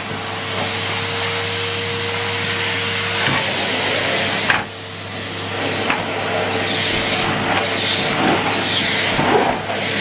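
Numatic Henry Blue cylinder vacuum cleaner running steadily while its floor tool is pushed back and forth over a mat and carpet. A knock comes about halfway through, and the suction sound dips for a moment and then builds back up.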